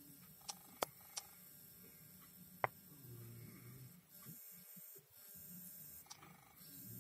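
Faint low hum with a few sharp clicks: three close together in the first second and a half, and a louder one a little before the three-second mark.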